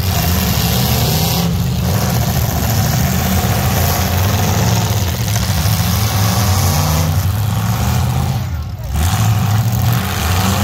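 Several demolition derby pickup trucks' engines running and revving at once, their pitch rising and falling as they drive and push.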